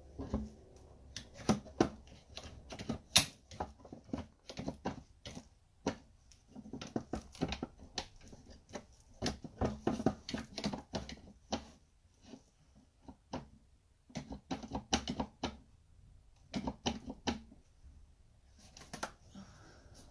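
Irregular clicks, taps and knocks of hands handling wooden furniture parts and tools, in uneven clusters with short pauses.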